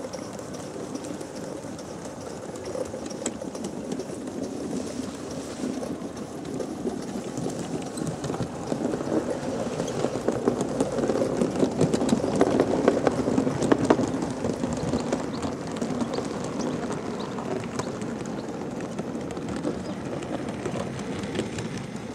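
Gauge 1 live-steam model locomotive and its coaches running along garden track: a dense, rapid clatter from wheels and running gear that grows louder as the train passes close by, loudest about halfway through, then eases off as it moves away.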